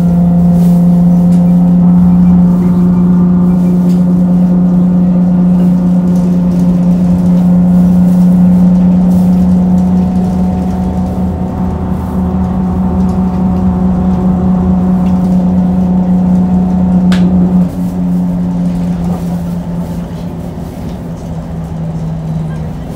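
Isuzu Erga city bus heard from inside the cabin while under way: its drivetrain gives a loud, steady hum. About 17 seconds in there is a sharp click, then the hum drops a little in pitch and grows quieter as the bus eases off.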